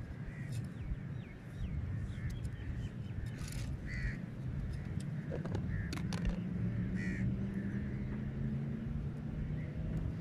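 Crows cawing, a few short harsh calls, over a steady low hum that grows stronger in the second half.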